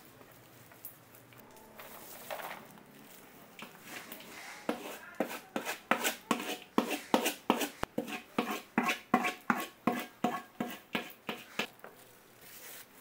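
Quick repeated knocks or scrapes of a kitchen utensil working the oranda snack mixture, about four a second. They start about four seconds in and stop near the end.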